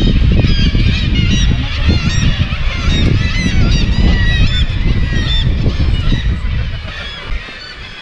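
A seabird colony of gulls calling, many birds at once in quick overlapping short cries. A heavy low rumble lies underneath and fades near the end.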